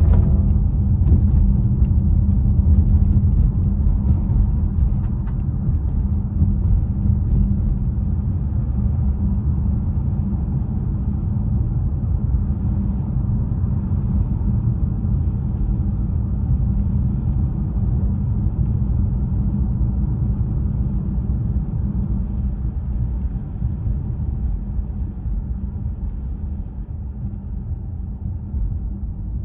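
Car cabin road noise while driving: a steady low rumble of tyres and engine, growing gradually quieter over the last several seconds.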